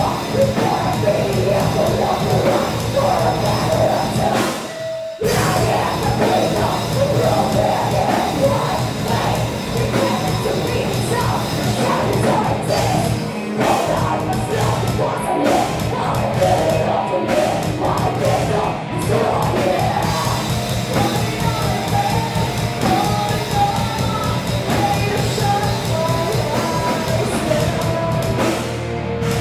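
Live rock band playing a song: electric guitars, bass and drum kit, with a singer's vocals. The whole band breaks off for a split second about five seconds in.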